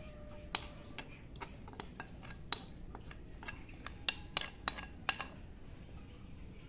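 A spatula scraping a wet tomato sauce off a glazed ceramic plate, making scattered light clinks and taps of utensil on dish. The sharpest clinks come close together about four to five seconds in.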